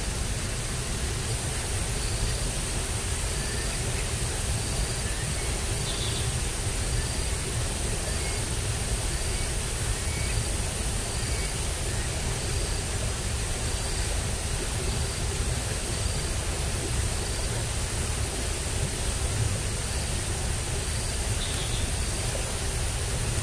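Steady outdoor background: an even rushing noise with a low rumble, a constant high whine, and a short high peep repeating about once a second.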